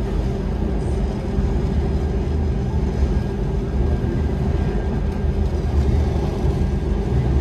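A train running: a steady low rumble with a constant hum.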